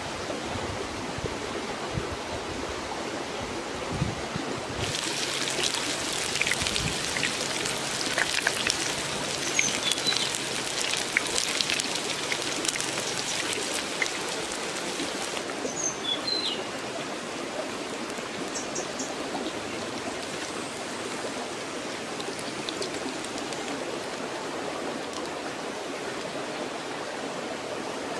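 Hot oil sizzling and crackling in a wok as round fish balls deep-fry, starting about five seconds in and stopping about fifteen seconds in. Under it, the steady sound of a running stream.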